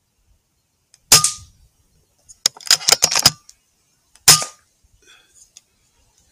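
Two shots from an FX Impact M3 .22 PCP air rifle, about three seconds apart, each a sharp crack with a short ring. Between them comes a quick run of metallic clicks as the side-lever action is cycled to load the next pellet.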